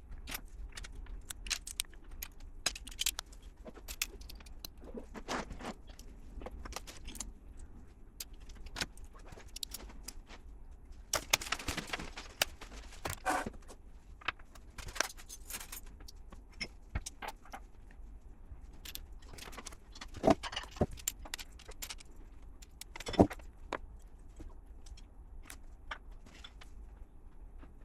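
Plastic LEGO pieces clicking and rattling as they are handled and pressed together: many irregular sharp clicks, with a few louder snaps.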